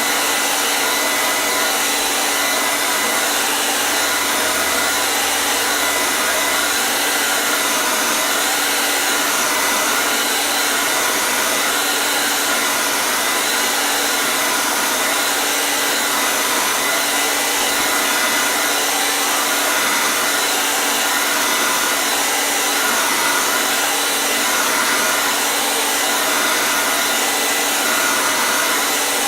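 Hair dryer running steadily with an even rushing hiss of air and a constant motor hum, unchanging throughout.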